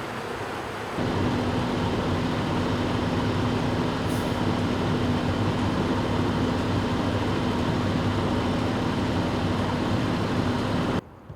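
A large engine running steadily, a constant low hum over a deep rumble and hiss. It begins with a jump in level about a second in and cuts off abruptly near the end.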